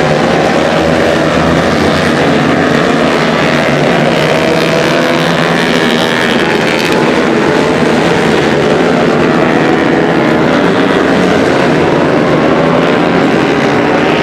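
Several tuned Honda CRF150L supermoto bikes, single-cylinder four-stroke engines bored out to 180cc, racing at high revs, with many engine notes rising and falling over one another.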